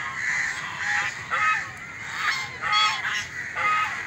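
A large flock of domestic geese honking, many short calls overlapping one another without a break.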